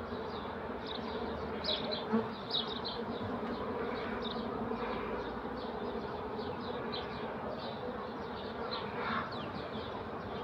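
Honeybees buzzing in a steady hum over an open hive full of bees, with a couple of brief knocks about two seconds in.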